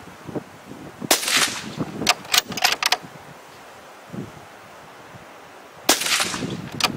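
Bolt-action precision rifle fired twice, about five seconds apart, each shot trailing off briefly. About a second after each shot come a few quick clacks of the bolt being worked to chamber the next round.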